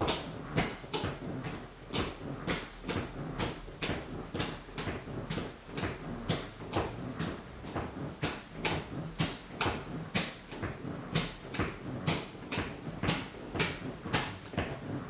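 Rhythmic toe tapping of a white sneaker on a wooden floor: a steady run of crisp taps, about two to three a second.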